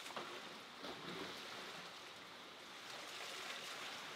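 Faint swimming-pool water ambience: a steady watery hiss with a couple of soft splashes in the first second.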